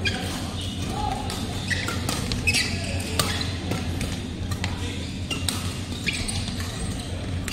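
Badminton rally: rackets striking the shuttlecock in a string of sharp hits, with short squeaks of court shoes on the synthetic floor mat, over a steady low hum.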